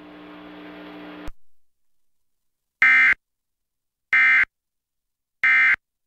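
Three short, identical bursts of Emergency Alert System digital data tones, each about a third of a second long and a second apart: the end-of-message code that closes the relayed warning. Before them, a low hum cuts off with a click about a second in.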